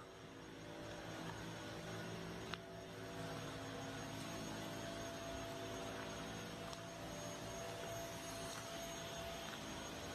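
A steady hum of several held tones over a faint hiss, with a few soft clicks.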